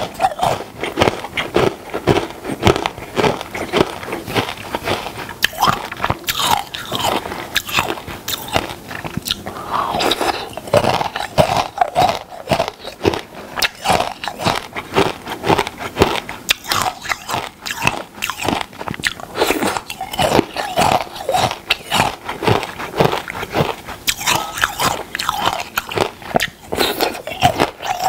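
Close-miked crunchy food being bitten and chewed, a continuous run of crisp crunches in quick succession.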